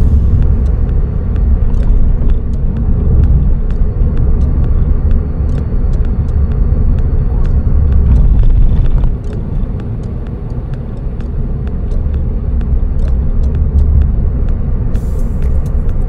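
In-cabin drive noise of a Suzuki Swift Sport ZC32S on the road: its 1.6-litre four-cylinder engine and the tyres make a steady low rumble. The rumble eases off about nine seconds in, then builds again.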